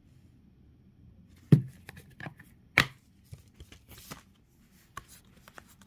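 Plastic 4K Blu-ray case being handled and opened: two sharp plastic clicks, about a second and a half in and just under three seconds in, then lighter clicks and rustles.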